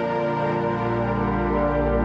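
Background music: slow ambient synthesizer pads with sustained chords and a deep bass note that swells in about half a second in.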